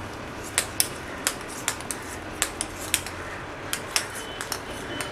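Live mud crab's leg tips clicking on a hard stone-tile floor as it walks: about a dozen sharp, irregular clicks.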